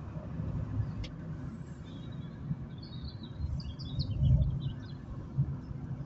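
Low rumble of an Opel Meriva driving, heard from inside the cabin. A bird chirps in a short run of quick notes from about two and a half to five seconds in, with a single faint click about a second in.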